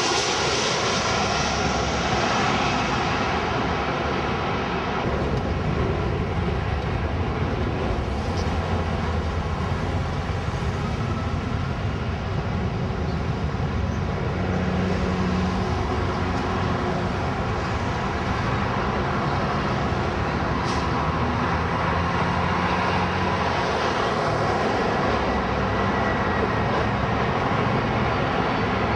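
Jet airliner turbofan engines on landing approach: a steady, loud rushing noise with a faint high whine near the end.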